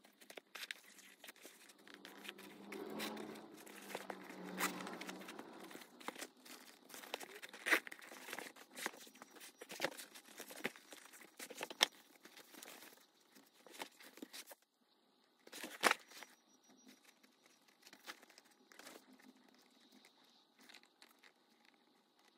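Crafting materials being handled and worked by hand: irregular rustling and crinkling with scattered sharp clicks and taps, busiest in the first few seconds and thinning out in the second half, where the loudest single click falls a little before the end.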